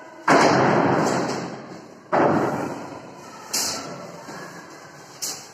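Two loud thuds about two seconds apart, each with a long echoing decay, followed by two lighter knocks.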